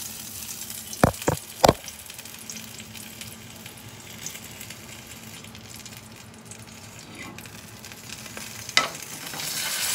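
Sausage frying in a pan, a steady sizzling hiss. Three sharp clicks come about a second in and another near the end.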